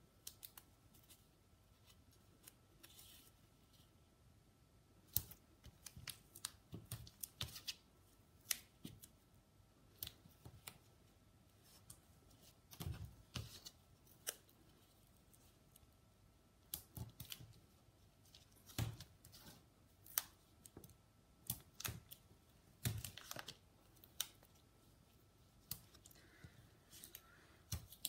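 Craft scissors cutting paper or card: faint, irregular snips, some in short runs, with pauses between.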